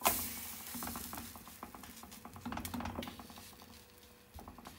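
Water-wetted side of a rolled besan roti hitting a hot iron tawa: a sudden hiss as it lands, then dense crackling and spitting that slowly fades as the water boils off.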